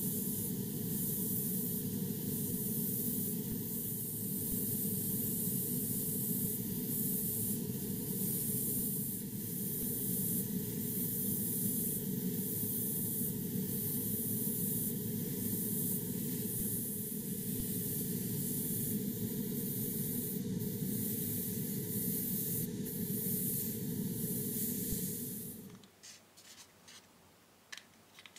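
Airbrush spraying a flat clear varnish coat onto a plastic scale model: a steady hiss of air and atomised paint with slight flutter. It cuts off sharply about 26 seconds in, and faint clicks of the plastic model being handled follow.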